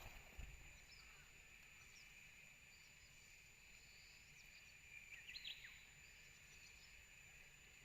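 Faint early-morning rural ambience: a steady insect drone with a brief bird chirp about five seconds in.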